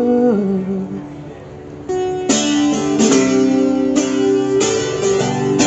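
A woman's held sung note trails off in the first second, then guitar chords are strummed from about two seconds in, a strong strum roughly every second, as the song's instrumental passage continues.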